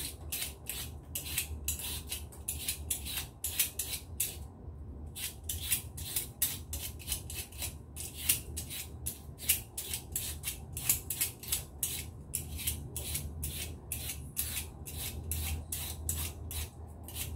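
Vegetable peeler scraping the skin off a lotus root in quick repeated strokes, about three a second, with a brief pause about four and a half seconds in.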